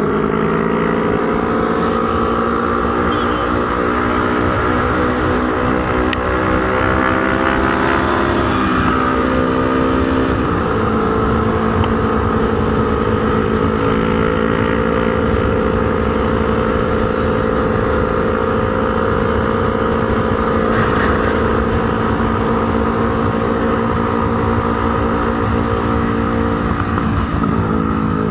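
Motorcycle engine running under way, heard from the moving bike. Its pitch climbs slowly for the first several seconds, falls off over a couple of seconds about a third of the way in, holds steady at cruising speed, and dips again near the end.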